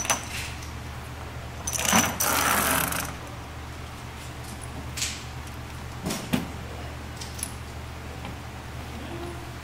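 A handful of sharp metallic clicks and clinks, spaced a second or more apart, with a brief rattling clatter about two seconds in, over a steady low hum.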